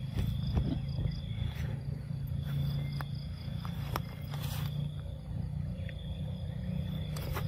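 Outdoor ambience: a steady low rumble with a thin, steady insect trill above it and a few faint scattered clicks.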